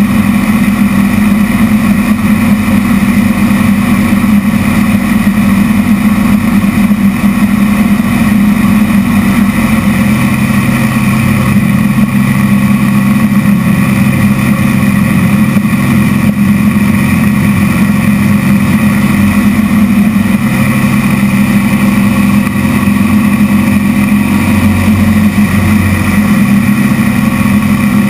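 Zlin aerobatic light aircraft's piston engine and propeller running loud and steady, heard inside the cockpit, with a lower tone joining the drone about ten seconds in.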